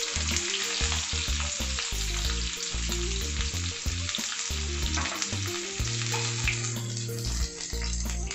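Sliced onions sizzling in hot oil in a kadhai: a steady frying hiss just after they are tipped in, easing slightly near the end.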